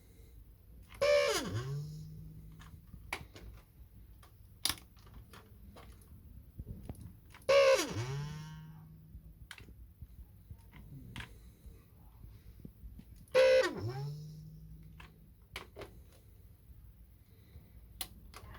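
Dyson V10 Absolute cordless vacuum motor trying to start three times: each attempt is a short loud burst with a falling whine and a low buzz lasting about a second and a half before it dies away, with small clicks in between. This is the vibrating failed start-up that a new filter did not cure, which the owner suspects is a defective motor or impeller.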